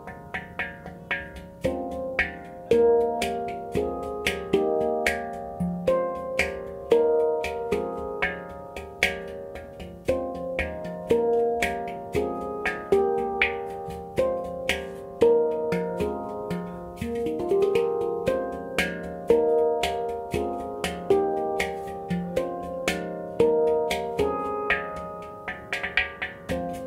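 Handpan tuned to F minor being played: a steady flow of struck, ringing notes at a few strikes a second, overlapping into a sustained shimmer, with a short rising slide in pitch partway through.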